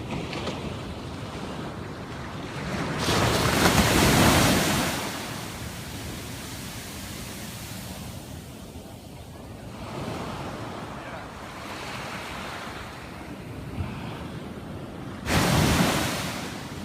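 Ocean waves washing onto the beach, a steady surf sound that swells loudly about three seconds in and again suddenly near the end, with some wind buffeting the microphone.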